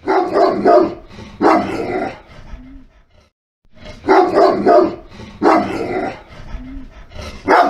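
A dog barking repeatedly in short bouts of quick barks, with a silent pause of about a second midway.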